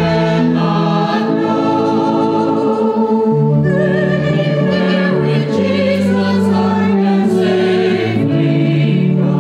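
Church choir singing a hymn in parts, slow held chords that change every few seconds.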